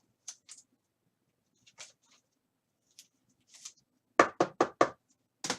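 Light clicks and card-handling sounds, then a quick run of four sharp knocks on a hard surface near the end, with one more just before it ends.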